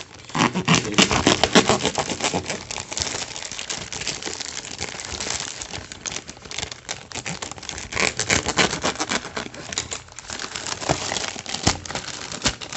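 Plastic mailer bag crinkling and tearing as it is cut open with a serrated knife and pulled apart by hand: a dense, irregular run of crackles and rustles.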